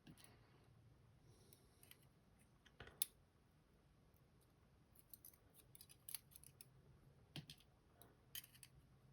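Faint small metallic clicks and ticks of lock pin stacks (barrel drivers and key pins) being handled as they are taken out of an Assa Guideline lock: one sharper click about 3 seconds in, then a scatter of light ticks in the second half.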